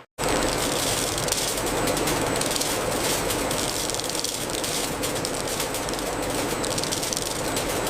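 Steady running rattle of processing machinery, with a dense patter of small clicks like peanut kernels pouring through a sorting line, over a constant low hum.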